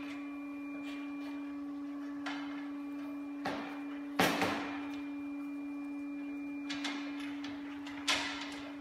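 Threaded metal tube sections of a bore gauge extension rod being screwed together by hand, giving a few short sharp clicks and knocks, the loudest a little past four seconds in, over a steady hum. The joint is not seating well because the thread is going on crooked.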